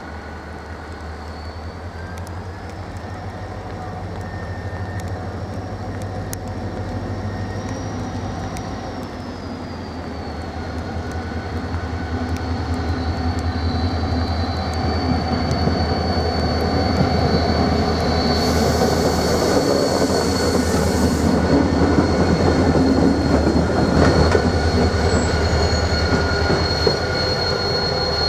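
Renfe class 333.3 diesel locomotive 333.342 running light on its own, its engine drone growing louder as it draws near, with a thin high wheel squeal on the track. A brief hiss comes about three-quarters of the way through, followed by a single clunk from the wheels.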